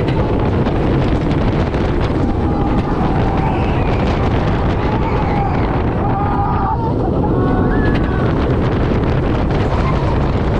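Wind blasting the camera microphone together with the rumble of a hybrid roller coaster train racing down the track, steady and loud, as the train plunges through the first drop.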